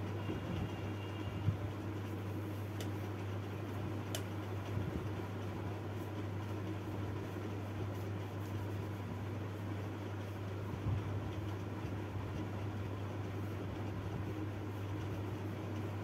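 Steady low hum with an even hiss of room noise, like a fan or motor running, and a couple of faint ticks.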